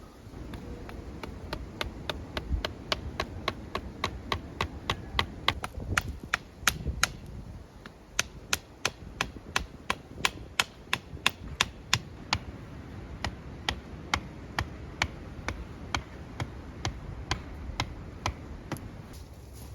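Rapid, even tapping of a tool striking wood, about three strikes a second, louder for a stretch in the middle.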